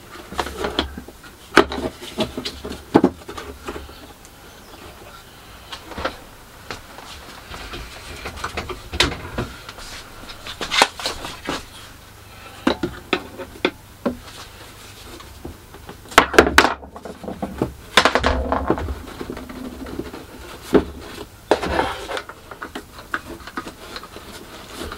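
Irwin one-handed bar clamps being fitted and ratcheted tight: irregular sharp clicks and knocks of the clamps' triggers and jaws against the nosecone, with a louder flurry about two-thirds of the way through.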